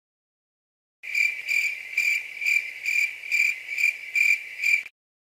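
Cricket chirping: a steady high trill that pulses about twice a second, starting about a second in and cutting off suddenly near the end. This is the stock 'awkward silence' cricket sound effect.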